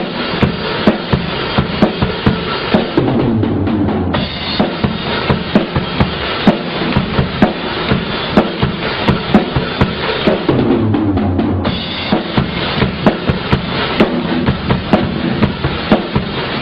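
Acoustic drum kit being played: a steady beat of kick drum and snare with cymbals. The cymbals stop for about a second twice, a few seconds in and again past the middle.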